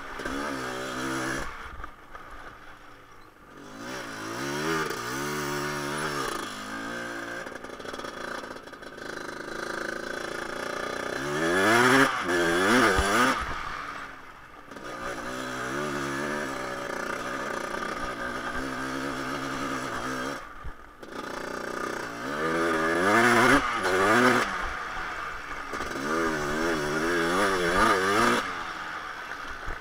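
A 1988 Honda TRX250R's new two-stroke single-cylinder engine revving hard under riding. The pitch climbs repeatedly as the quad pulls through the gears, and the engine falls off briefly each time the throttle is closed.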